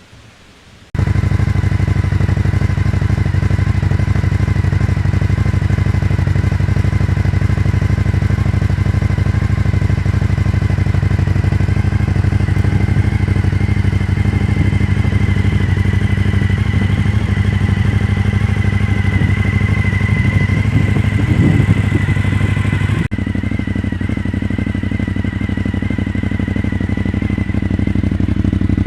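Suzuki SV1000's 90-degree V-twin engine running steadily at idle, loud and close, cutting in suddenly about a second in and dropping a little in level near the end.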